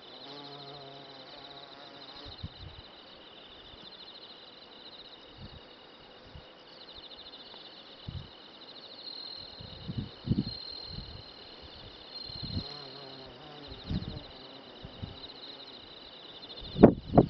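A steady, high trilling chorus of insects, with scattered low thumps and one sharp knock near the end.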